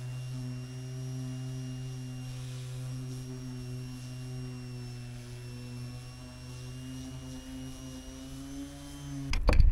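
Electric random orbital sander running steadily on a teak deck, sanding the wood level and taking off old sealant around a deck-switch hole. Its even hum cuts off near the end, followed by a brief loud noise.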